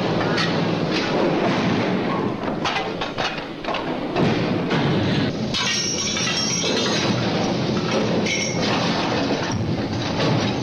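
Oil drilling rig machinery running steadily, with repeated clanks and rattles of chain and steel drill pipe on the rig floor. A high ringing note comes in about halfway through as the chain is wrapped around the pipe.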